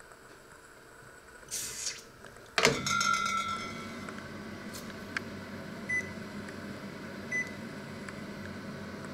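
Panasonic microwave oven: its door is swung shut and closes with a loud clunk a few seconds in, followed by a steady hum and two short beeps as the power setting is keyed in on the panel.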